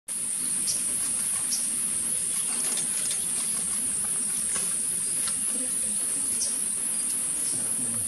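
Steady high-pitched drone of forest insects, unbroken throughout, with a few short, faint high chirps over it.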